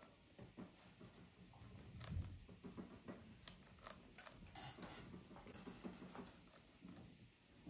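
Faint, irregular light clicks and taps, with a dull thump about two seconds in.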